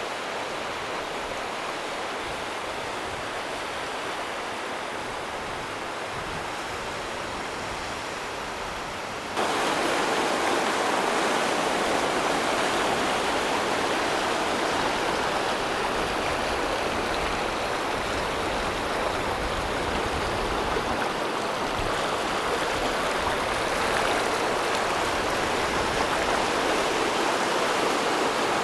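River water rushing over boulders in rapids, a steady noise that gets suddenly louder about nine seconds in.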